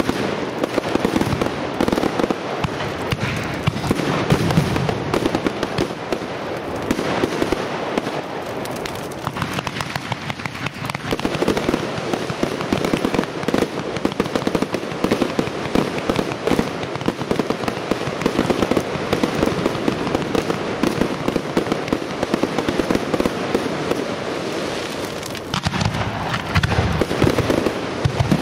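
Professional aerial firework display: a continuous barrage of shells launching and bursting, with dense crackling between the bangs. Heavier, deeper bangs come in the last few seconds.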